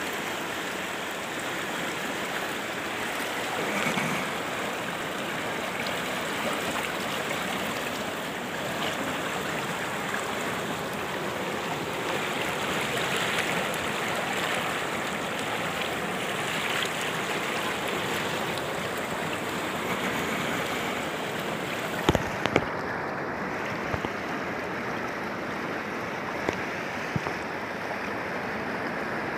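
Steady rush of muddy floodwater in a swollen stream in spate, an even noise. A few sharp knocks come about three-quarters of the way in.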